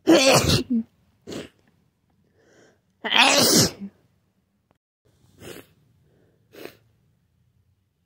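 A person sneezing hard twice, about three seconds apart, with shorter, fainter sounds in between and after, in a fit of repeated sneezing.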